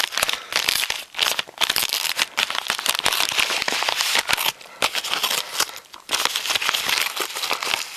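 A white mailing envelope being handled and worked open by hand close to the microphone: a run of loud crinkling and rustling, broken by a few short pauses.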